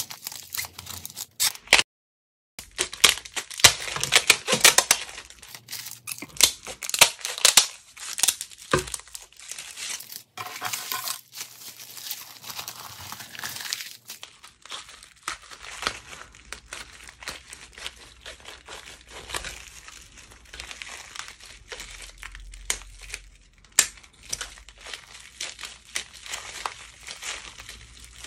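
Scissors snipping and crunching through stiff dried-slime skins, with a dense run of sharp crinkling crackles. It thins to softer, sparser crinkling about halfway through, and there is a short gap about two seconds in.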